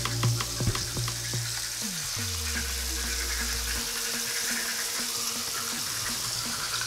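Bathroom sink tap running, a steady hiss of water. A beat with a bass line plays over it for the first couple of seconds, then the bass slides down and stops.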